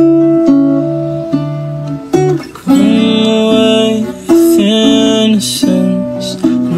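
Music: a melody of plucked notes that each ring and fade, the arrangement growing fuller about two and a half seconds in.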